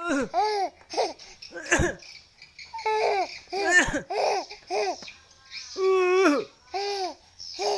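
An eight-month-old baby's voice making a string of short hooting calls, each rising then falling in pitch, in imitation of an owl, with one longer held call about six seconds in. Two sharp knocks come near two and four seconds.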